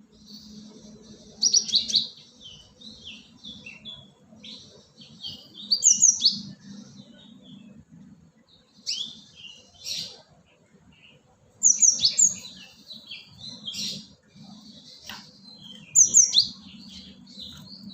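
Cinereous tit (gelatik batu) calling: bursts of sharp, high, falling notes followed by twittering chatter, repeated about every three to four seconds, played as a lure call. A faint steady low hum runs underneath.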